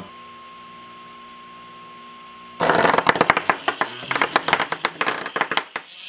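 A faint steady high hum, then about two and a half seconds in a sudden burst of irregular clattering and rattling as the Parrot Bebop drone and the phone are handled and moved on the table.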